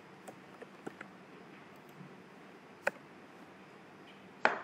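Scattered clicks of a computer mouse and keyboard while a command is copied and pasted: several faint clicks in the first two seconds, a sharper one nearly three seconds in, and the loudest click near the end.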